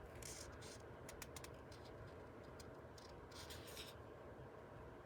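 Faint rustling and light scratching of paper, a few short brushes in a row, as the pages of a book are handled, over quiet room tone.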